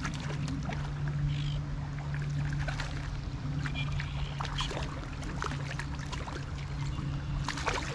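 Stream water running, with scattered small splashes and clicks over a steady low hum. A few short high chirps come in the middle.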